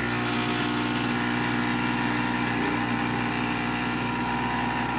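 Gaggia Classic espresso machine's vibratory pump switching on with a click and buzzing steadily against a blind backflush basket fitted with a pressure gauge, building up brew pressure.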